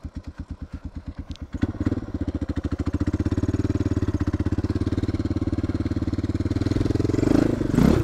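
Suzuki DR650's single-cylinder four-stroke engine idling with an even beat, then opening up about one and a half seconds in as the bike pulls away, running steadily under throttle with a brief louder surge near the end.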